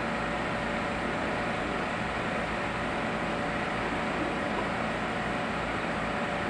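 Steady, even hum and hiss of running equipment, with a few faint steady tones and no distinct events.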